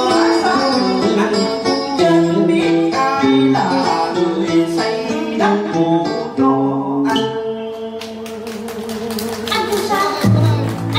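Cải lương accompaniment music carried by plucked string instruments playing a melody, giving way about seven seconds in to a run of sharp percussion strikes.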